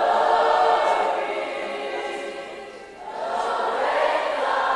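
Many voices singing a worship chorus together: one long held phrase that fades out about three seconds in, then a new phrase that swells in.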